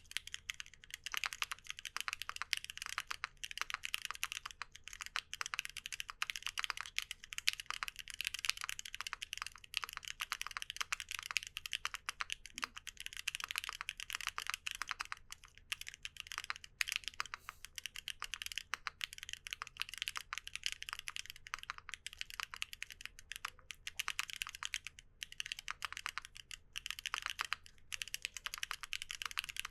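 Continuous fast typing on a mechanical keyboard fitted with WEKT XCJZ Green Mustard Plus linear switches (PP top housing, MPA bottom housing, POM stem, lubed): a rapid stream of high-pitched, clacky keystrokes.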